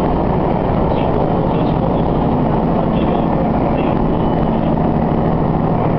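Diesel railcar running steadily along the track: a continuous engine drone with the sound of the wheels on the rails, heard from inside the car.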